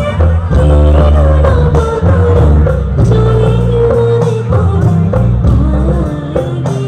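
A woman singing a Jyoti Sangeet song live into a microphone, amplified through a PA, over band accompaniment with heavy bass. She holds long, wavering notes.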